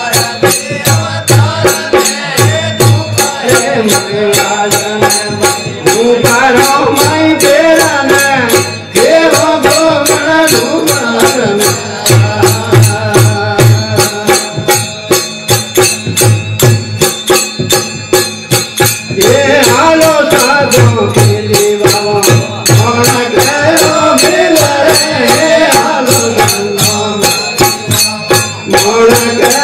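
Marwari devotional bhajan performed live: a male voice sings in long phrases over small brass hand cymbals (manjira) struck in a steady quick rhythm and a plucked long-necked drone string instrument (tandura).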